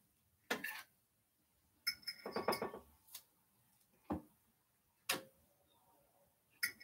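A kitchen utensil clinking and tapping against dishes while cauliflower wings are plated: about six scattered clicks, a short run of them around two seconds in, and one clink about five seconds in that rings briefly.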